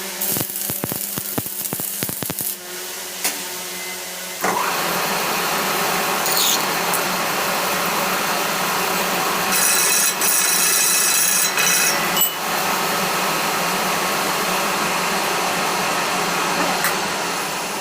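Workshop tool noise during a bus main shaft repair: a scatter of clicks and knocks for the first few seconds, then a power tool starts about four seconds in and runs steadily. A harsher hiss stands out briefly in the middle.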